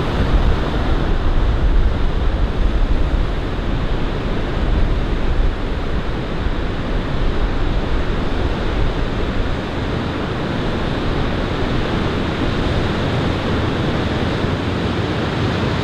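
Ord River water rushing steadily over the Ivanhoe Crossing causeway, an even wash with a low rumble underneath.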